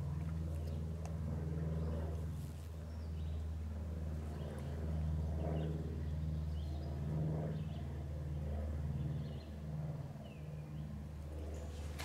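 A low, steady rumbling hum that swells and fades every second or so, with faint high chirps over it.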